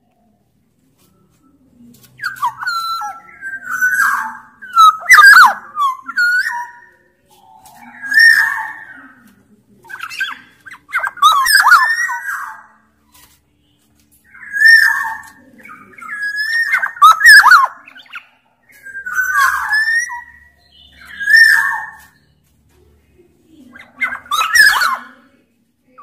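Black-naped oriole (kepodang, Sumbawa form) singing: a run of loud, fluty whistled phrases with sliding pitch, about one every two seconds, starting after a brief pause.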